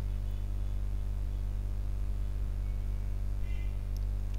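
Steady electrical mains hum with faint hiss from the recording setup. No speech.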